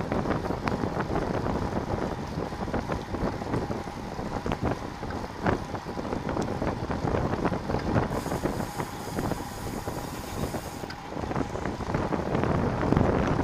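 Wind rushing over the microphone of a bike-mounted camera while riding, with road noise and frequent small rattles and knocks from the bicycle over the pavement. A high buzz joins in about eight seconds in and stops about three seconds later.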